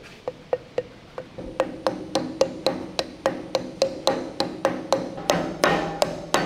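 A soft-faced mallet tapping a bearing down into a steel final drive housing: a steady run of about four taps a second, each with a short ring, light at first and harder from about a second and a half in.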